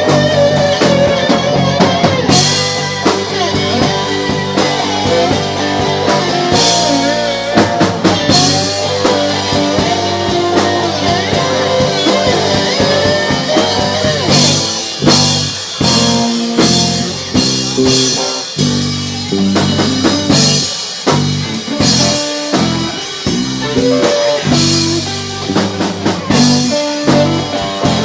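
A blues-rock band playing an instrumental passage: guitar with bending notes over a drum kit, with cymbal crashes every few seconds.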